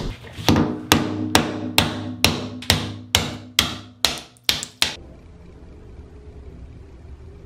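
Claw hammer tapping a flat pry bar wedged under a sliding shower door's metal track on a bathtub rim, prying the caulked-on track loose. About eleven evenly spaced strikes come at a little over two a second, each ringing briefly, and they stop about five seconds in.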